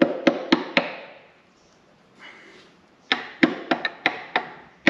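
Hammer blows knocking bolts out of a spare six-cylinder Karrier K6 engine. Four sharp strikes come in quick succession, then after a pause of about two seconds a faster run of about eight strikes, some with a short metallic ring.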